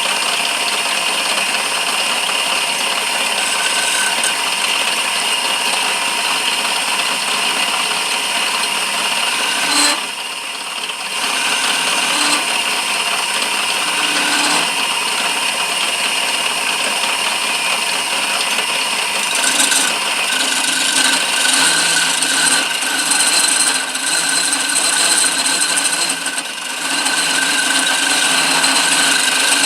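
Lathe running while a walnut handle is turned on it: a steady motor sound with the scrape of the tool cutting the wood, easing briefly about ten seconds in.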